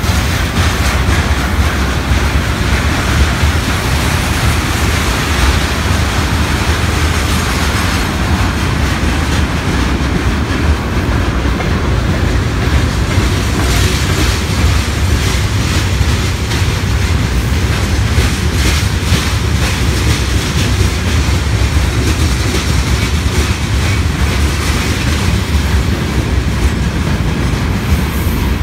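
Freight train of tank wagons and container flatcars passing close by: a steady, loud noise of steel wheels running on the rails, heaviest in the low end.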